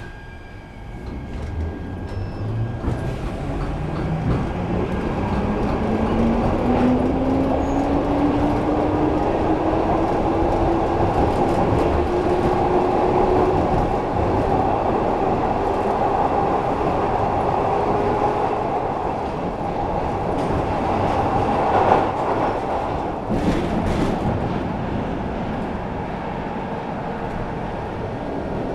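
Glasgow Subway train pulling away and accelerating into the tunnel: the motor whine rises steadily in pitch for about the first ten seconds, then the train runs at speed with steady wheel and rail noise. There is a sharp knock a little past two thirds of the way through.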